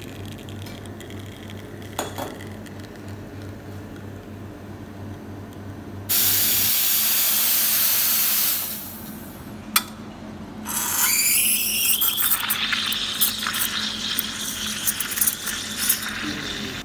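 Espresso machine pump humming steadily as a shot pours, then a loud burst of hiss for about two and a half seconds as the steam wand is purged. After a click, the steam wand hisses and sputters in a steel pitcher of milk, frothing it, until near the end.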